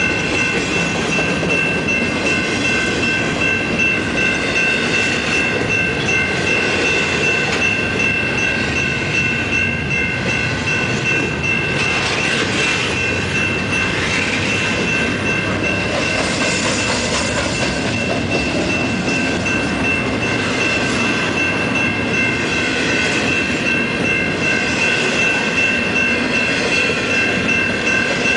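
Intermodal freight train rolling past, a continuous rumble of cars and wheels on the rail, with a steady high-pitched ringing throughout.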